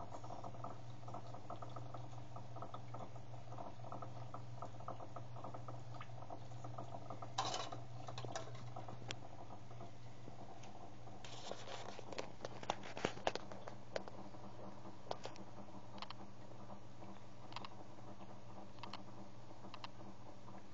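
A small pump hums steadily while liquid trickles and patters from a tube into a plastic nutrient tank; the hum weakens about halfway through. Scattered clicks and knocks from handling, with a short cluster of sharper ones a little past the middle.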